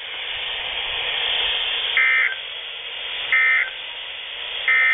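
Three short, identical bursts of warbling data tones from a NOAA Weather Radio receiver's speaker, about 1.4 seconds apart over steady radio hiss: the SAME digital End of Message code that closes a broadcast alert.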